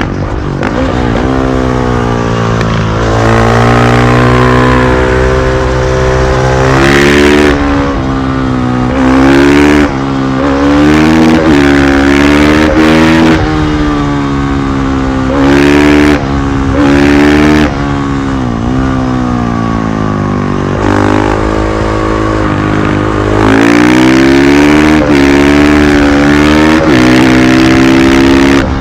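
2020 KTM 500 EXC-F supermoto's single-cylinder four-stroke engine being ridden hard: its pitch climbs as it revs up, then drops each time the throttle closes, over and over, with short breaks between the runs.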